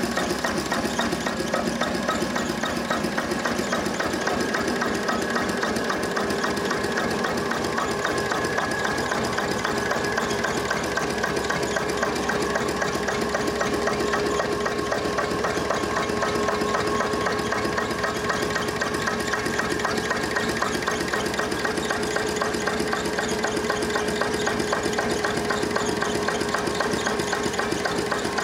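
Slavia D12 12 HP single-cylinder diesel stationary engine running steadily with a rapid, even beat while it drives a 380 V generator.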